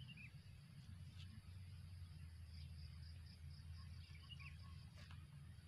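Near silence: faint outdoor field ambience with a low steady hum, two faint bird chirps and a soft high insect trill.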